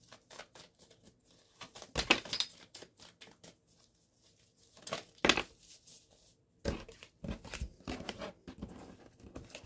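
Cartomancy cards handled and shuffled by hand: short papery rustles and snaps, one about two seconds in, another about five seconds in, then a quick run of them through the last three seconds.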